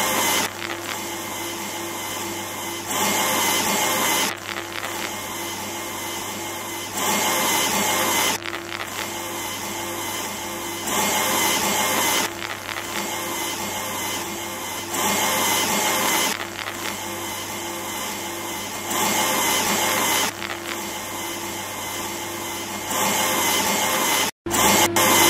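Machinery running with a steady hum and a louder spell of about a second and a half repeating every four seconds, in an even, machine-like cycle. The sound cuts out for an instant near the end.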